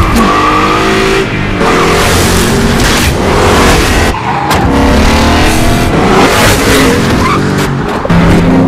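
Car engines revving hard with tire squeals, a loud cut-together stretch of chase sound whose engine pitch jumps and rises from one shot to the next.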